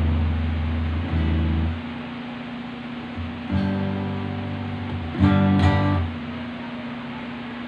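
Single low notes plucked on a solid-body electric guitar played through a small USB mixer. There are about four notes, each ringing for roughly a second with pauses between them, the last one brighter. A steady electrical hum runs underneath.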